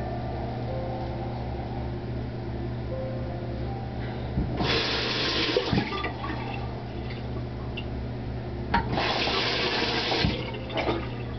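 Bathroom sink tap running twice, each time for about a second and a half, over a steady low hum.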